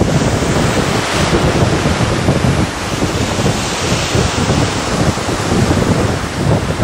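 Wind buffeting the microphone over the steady rush of small waves breaking on a sandy beach.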